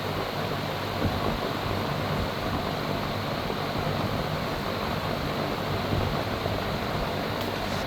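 Steel R&M Hunter 20-inch two-speed box fan running on its low setting: a steady rush of air with a low motor hum.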